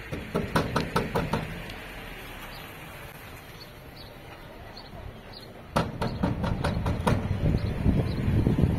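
Two runs of sharp knocks, each about half a dozen in quick succession: one right at the start and one about six seconds in. A low, rough shuffling noise builds after the second run.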